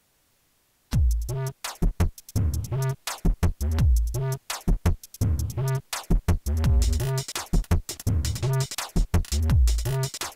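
Electronic music with a drum machine, synthesizer and strong bass, chopped into stuttering fragments with abrupt cut-offs, starting about a second in after near silence.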